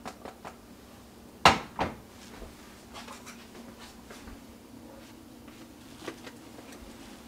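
Two sharp knocks in a kitchen, the first the louder, about a second and a half in, followed by a few faint light clicks.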